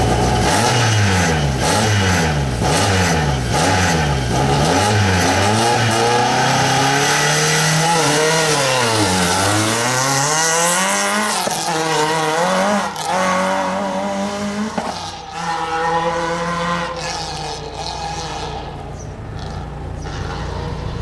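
Citroën C2 rally car's four-cylinder engine revved up and down repeatedly at the start line, then pulling away hard, the revs climbing and dropping through several gear changes. The sound fades as the car moves off into the distance.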